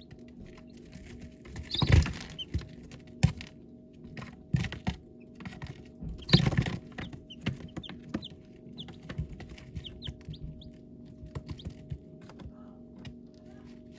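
Baby chicks peeping in short high chirps, among many small taps and rustles, with two louder rustling bursts about two seconds and six seconds in.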